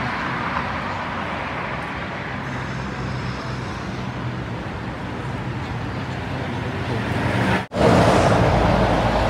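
Steady road traffic noise, with a low hum under it. Near the end it cuts out for an instant and comes back louder.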